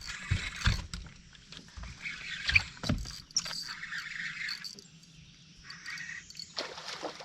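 Water sloshing and splashing with a few dull low thumps and a sharp click about two and a half seconds in.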